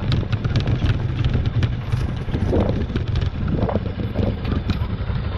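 Bajaj Pulsar NS200's single-cylinder engine running steadily at low speed on a rough dirt track, with frequent clicks and rattles from the bike and its mounts jolting over the stones, and some wind noise.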